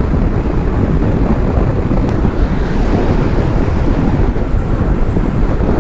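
Wind rushing over the camera microphone on a motorcycle travelling at expressway speed: a loud, steady low rumble that buries any engine note.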